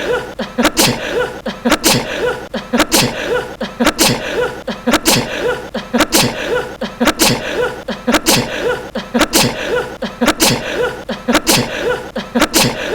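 A young man's short, sharp sneezes, repeated over and over in quick succession as a tight loop, mixed with laughter and voices.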